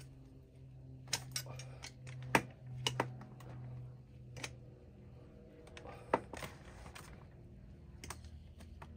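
Irregular sharp metal clicks and taps of a wrench on an oil burner's nozzle and electrode assembly as the nozzle is tightened, with a low steady hum underneath.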